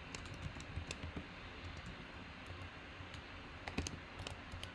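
Keystrokes on a computer keyboard: a quick run of clicks in the first second, a pause, then another run near the end.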